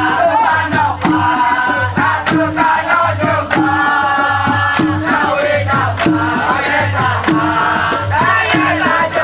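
Live band playing a Malay song, with a steady beat of about two strikes a second and a melody line over it, between sung lines.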